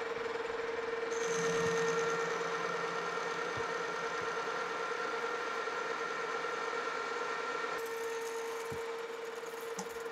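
Metal lathe running with a steady hum while the turning tool takes a cut on the spinning workpiece. The cutting sound comes in about a second in and stops near eight seconds, leaving the lathe running, with a few light ticks near the end.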